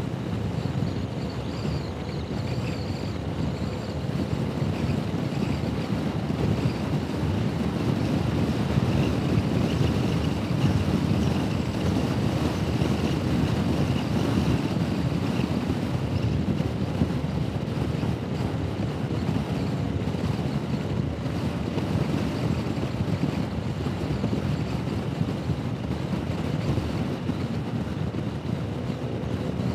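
Wind rushing over the microphone of a Honda Forza 125 scooter riding at road speed, with the scooter's single-cylinder engine running steadily underneath. The rush swells somewhat through the middle.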